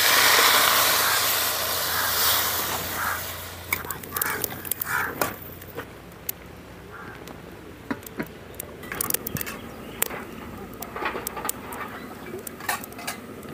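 Water pouring from a steel tumbler into a large aluminium pot of chopped cabbage, splashing loudly for about three seconds and fading. Scattered light clicks and scrapes of a metal ladle against the pot follow.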